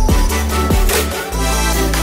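Background music with a deep, sustained bass line and a steady drum beat.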